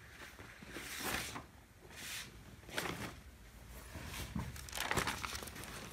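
Faint rustling and brushing of a hand and marker moving over a sheet of paper, in several soft swishes.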